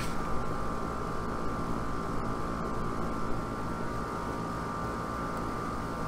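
Outdoor single-speed air-conditioner condenser unit running steadily, its compressor and fan giving a constant hum with a higher steady whine.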